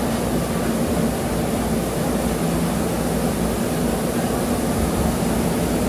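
Compact combined rice mill running steadily as it mills a batch of paddy rice: a loud, even mechanical hum with a low drone and a rushing noise over it.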